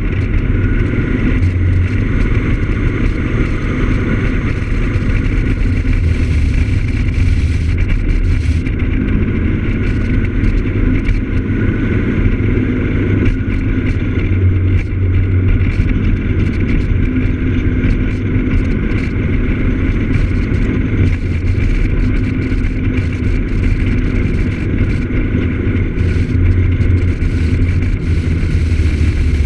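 Piaggio X9 Evo scooter's engine running steadily while riding at road speed, heard from an onboard camera, with a constant low rumble of wind and road noise and frequent short flutters of wind on the microphone.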